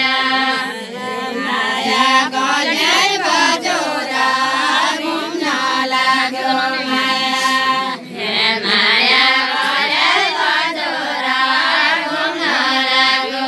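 A group of women singing a Deuda folk song in unison, unaccompanied, in long held chanted lines, with a short break about eight seconds in before the next line starts.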